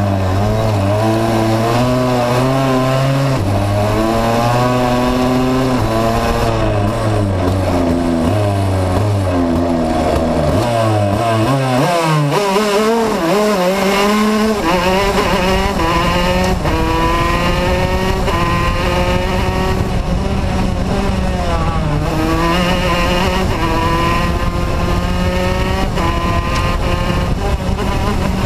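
Racing kart engine heard onboard at full effort, its revs climbing and dropping again and again as the kart accelerates and slows through the bends.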